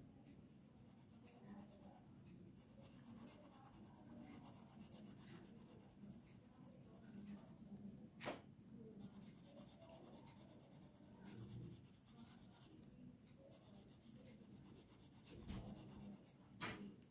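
Blue coloured pencil shading on paper: faint, fast back-and-forth scratching strokes that pause briefly a few times. There is a sharp tick about eight seconds in and another near the end.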